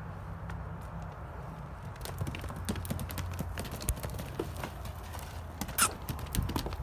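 A horse's hooves striking packed dirt as it runs loose, the irregular hoofbeats starting about two seconds in. Near the end comes one louder sharp sound.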